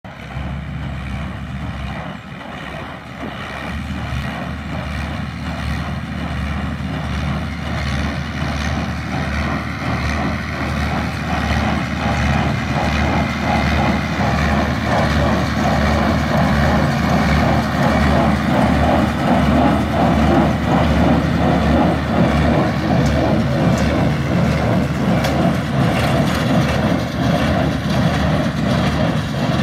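Ferrari Cromo K60 RS compact tractor engine and a Welger small square baler running together while baling hay, a steady mechanical drone with a busy, rhythmic texture. It grows louder as the outfit comes closer.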